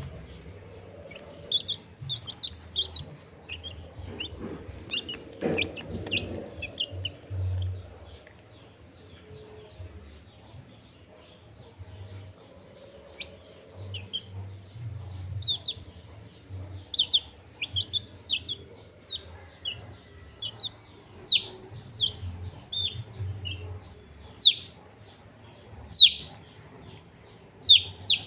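Domestic chicks peeping: short, high-pitched calls that slide down in pitch, scattered at first and coming thick and fast in the second half, over low rustling and bumps.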